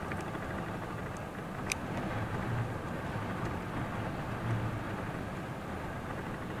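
Steady outdoor wind rumbling and buffeting on the microphone, with a few brief high ticks in the first couple of seconds.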